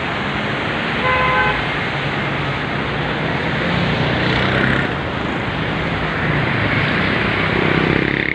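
Steady rushing noise of fast floodwater mixed with road traffic crossing the bridge, engines humming. A vehicle horn toots briefly about a second in.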